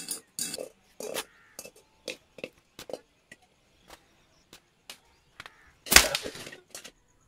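A metal cooking pot tumbling and knocking across a rough concrete floor: a run of short knocks that come less and less often, then a loud burst of noise lasting under a second about six seconds in.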